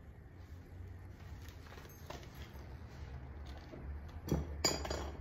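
Light handling noises as items, likely a book, are moved and shown, over a steady low hum, with two short louder rustles near the end.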